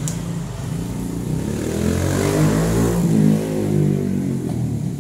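A motor vehicle's engine passing by: its hum swells to a peak about halfway through and then fades. A short click comes right at the start.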